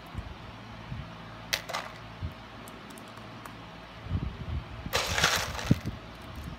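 Handling sounds of hands working with beads and paper: soft low knocks, a brief rustle about a second and a half in, and a louder rustle lasting about a second near five seconds in.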